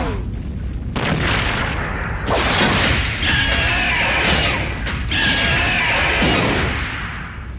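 Tokusatsu fight sound effects for a giant hero grappling with a monster: a run of sudden booming impacts. Between the impacts, a high screeching tone is held twice for about a second.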